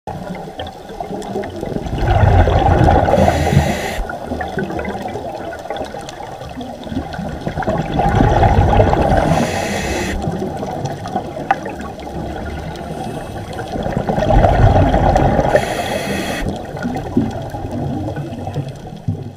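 Rushing water that swells and fades three times, about six seconds apart.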